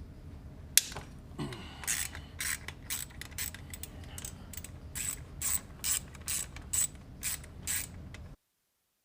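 Hand ratchet with a 10 mm socket clicking in repeated short strokes as it loosens a motorcycle's mounting bolts. There is one sharp click a little under a second in, then bursts of ratchet clicks about twice a second. The sound cuts off abruptly near the end.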